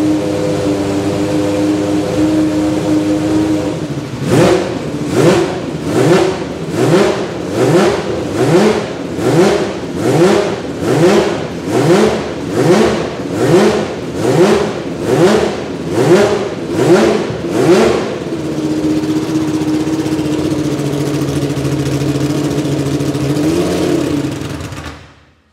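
Judd GV10 3.5-litre naturally aspirated V10 of a Lola T92/10 Group C car being warmed up while stationary: it idles, then is blipped about fifteen times in a row, roughly once a second, each rev rising sharply and dropping back. After that it settles to idle again, with one small blip near the end.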